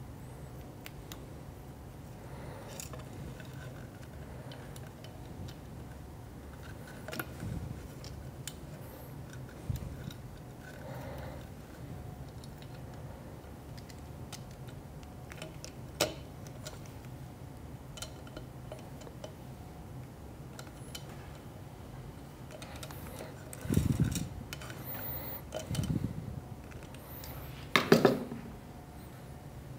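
Hands handling wires, small parts and tools inside a metal grinder base: scattered light clicks, taps and rustles, with a few louder knocks and clatters near the end.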